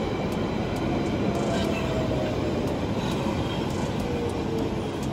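London Underground Central line train running on the track below, a steady rumble of wheels on rail with a faint motor whine sliding slowly down in pitch over the last few seconds.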